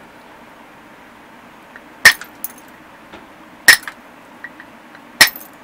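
Three sharp strikes of a punch against the end of an obsidian slab, knapping flakes off it by indirect percussion, about a second and a half apart. Each has a brief ring and a few light clinks after it.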